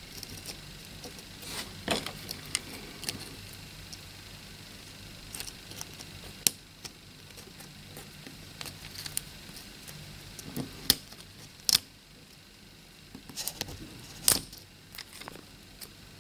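Scattered small clicks and taps of a dimmer circuit board, its parts and a soldering iron being handled against the jaws of a bench vise, over a faint low hum.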